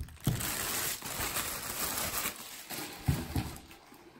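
Thin plastic bag crinkling and rustling as it is pulled off a small desk fan, with a couple of soft knocks about three seconds in.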